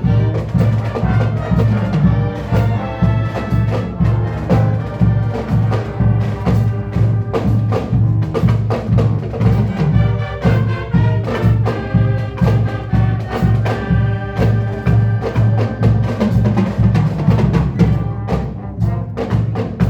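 Marching band playing: brass instruments carrying the melody over a steady percussion beat.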